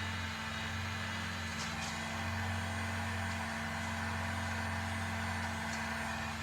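Heat gun running with a steady fan whir and hum while shrinking heat-shrink tubing over a soldered wire joint.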